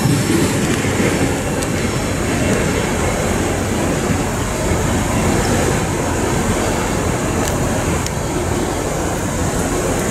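A long freight train of tank cars rolling past: a steady, loud rumble of steel wheels on the rails, with a few faint clicks.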